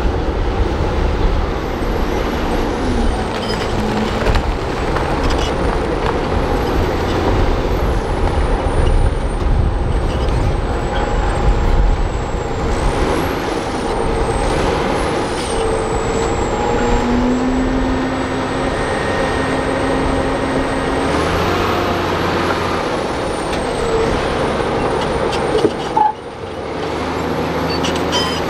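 Crawler bulldozer's diesel engine running steadily under load as it pushes dirt and rock, with a thin high whine that rises and falls several times over it. The sound drops briefly near the end.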